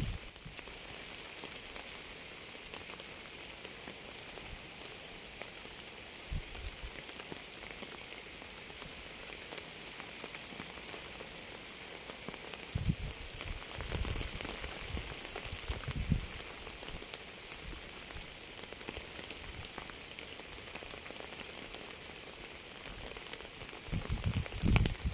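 Steady rain falling, an even hiss of many drops. A few brief low rumbles come through about a quarter of the way in and around the middle, and a louder low rumble builds near the end.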